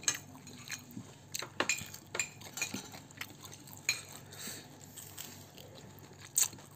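Scattered light clicks and taps of fingers and food against a ceramic plate as fried catfish is picked apart by hand, with a sharper clink near the start and another near the end.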